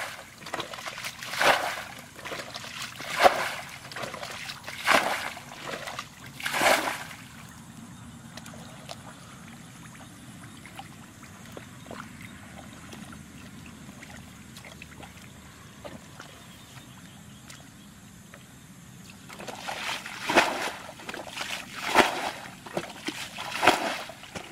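Shallow muddy water splashing and sloshing as a plastic bucket is worked through it, in a run of splashes about every second and a half. The splashes stop for a quiet stretch in the middle, with only faint trickling, then start again near the end.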